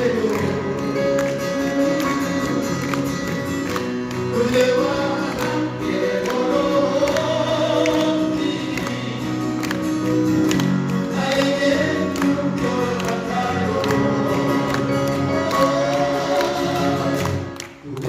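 Live male vocal quartet singing a slow ballad in close harmony over strummed acoustic guitars. The sound dips briefly near the end before the music picks up again.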